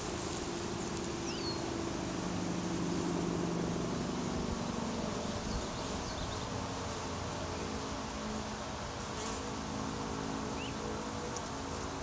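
Honey bee swarm humming: a steady buzz of many bees, with the drones of bees flying close by sliding up and down in pitch, strongest in the first half.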